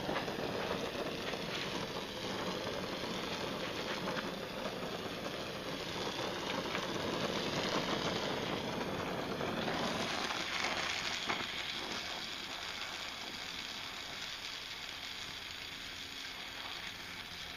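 Oxy-acetylene welding torch flame hissing steadily. About ten seconds in, the low rumble drops away and the hiss turns higher.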